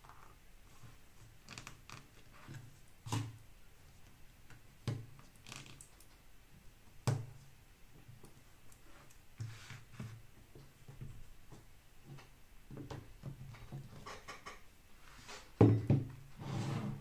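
Hands handling and pressing thick leather pieces on a cutting mat: soft rustles with scattered light clicks and knocks. Near the end a heavy steel block is set down on the mat with a thud and slid briefly.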